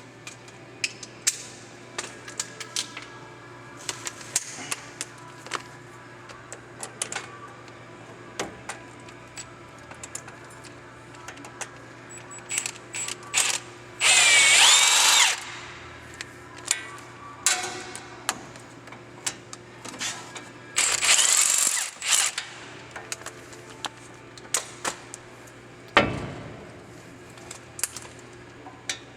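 Power tool zipping out bolts in two short bursts, one about halfway through and one about two-thirds through, each with a whine that sweeps in pitch. Scattered metal clinks of tools and parts come between, and there is a single dull knock near the end.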